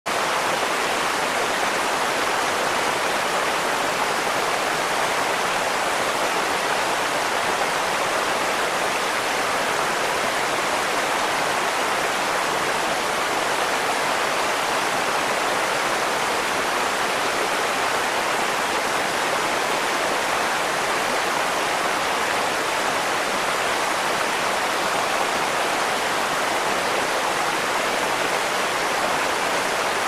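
Waterfall pouring down over rocks into a pool, with water rushing over the rocks below it: a steady, unbroken rush.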